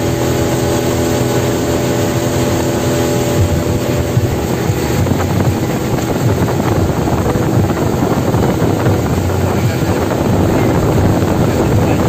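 Speedboat engine running steadily under way, with a rush of wind and water over it.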